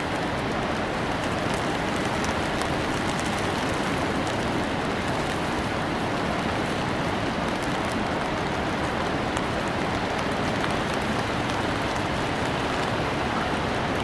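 A waterfall's steady, even rush of falling water, unbroken throughout.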